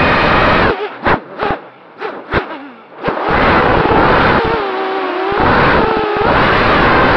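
Walkera F210 FPV racing quadcopter's brushless motors and propellers whining, heard from its onboard camera, the pitch rising and falling with the throttle. A bit under a second in the throttle drops almost to nothing apart from three short blips, then comes back on hard about three seconds in.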